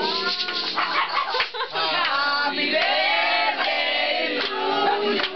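A group of people singing a birthday song together, many voices at once.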